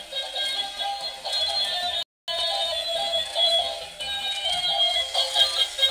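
Battery-operated toy elephant playing its built-in electronic tune through a tiny speaker: a thin, tinny melody with no bass, cut off briefly about two seconds in.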